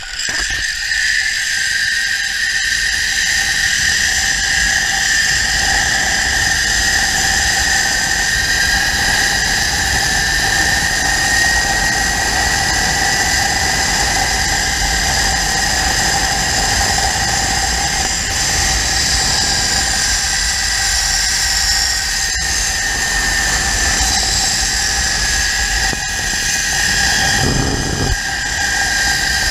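Zipline trolley's pulley wheels running along the steel cable at speed: a steady high whine with several tones that drift slowly in pitch, over wind rushing on the microphone.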